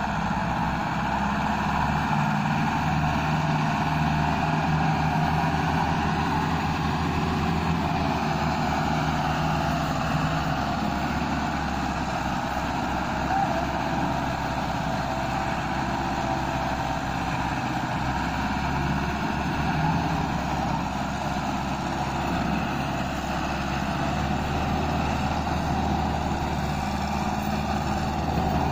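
Diesel engine of a Massey Ferguson 385 tractor running steadily under load as it pulls a heavily loaded sugarcane trolley.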